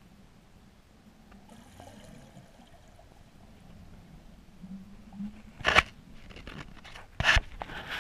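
Muffled underwater sound picked up through an action camera's waterproof housing: a faint low hum, then a mass of air bubbles rushing past and over the housing with two loud bursts, near six and just past seven seconds, and smaller crackling knocks after them.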